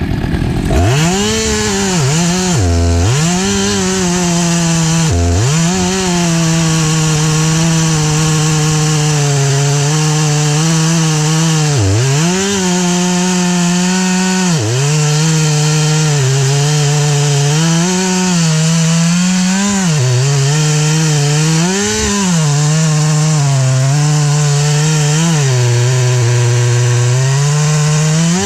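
STIHL MS 462 chainsaw running at high revs in a long cut through maple wood. The engine note sags sharply and recovers several times as the saw loads up in the cut.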